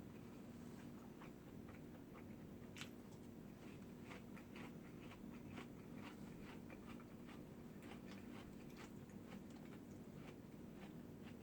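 Quiet chewing and mouth sounds of someone eating: a string of soft clicks and small crunches over a low steady hum.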